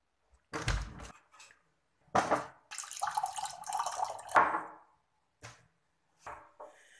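A thud, then water pumped from an electric air pot pouring into a mug for about two seconds.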